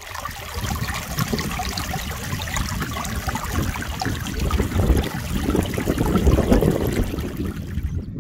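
Shallow stream running and trickling over rocks, a steady babble with a low rumble beneath it, cutting off just before the end.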